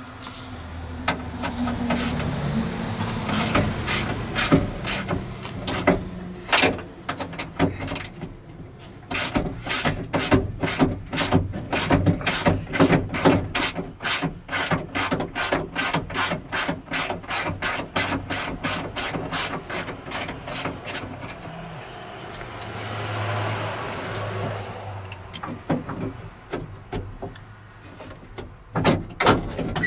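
Hand ratchet clicking in steady strokes, about two or three a second, as fasteners holding a window track inside a truck door are backed out. A stretch of scraping and rubbing breaks in about two-thirds of the way through.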